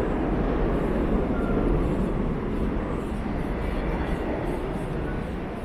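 Subway train rumbling, heavy and low, slowly fading.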